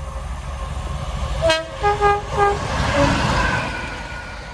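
English Electric Class 50 diesel locomotive sounding its horn in a quick run of short blasts on several different notes as it passes. Under the horn is the rumble and rush of the locomotive going by, which peaks about three seconds in and then fades.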